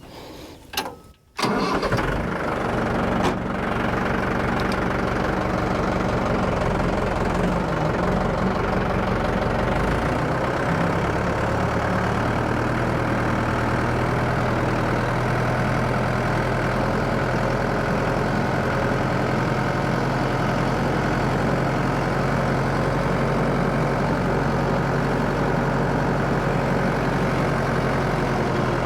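An engine cranks and starts about a second and a half in, then runs steadily. It is being started to take the sprayer out and run its pump until it primes.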